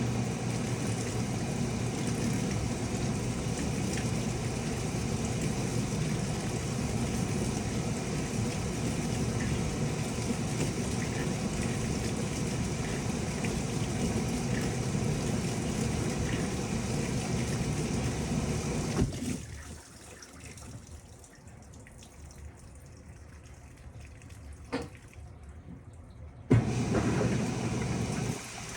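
Panasonic top-loading washing machine with water rushing steadily into the tub. The flow cuts off abruptly about two-thirds of the way through, leaving a quieter machine hum with a single click, then comes back on suddenly near the end.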